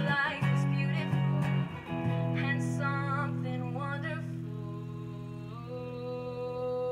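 Acoustic guitar chords strummed for about two seconds, then a long held chord with a wavering sustained note above it that steps up in pitch near the end, from the closing bars of a slow song.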